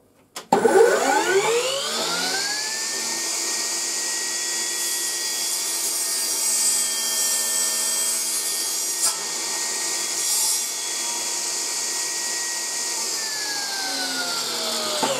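HiKOKI C3610DRJ cordless table saw, run on its battery. The motor spins up with a rising whine about half a second in, runs steady while a strip of plywood is ripped, then winds down and stops near the end.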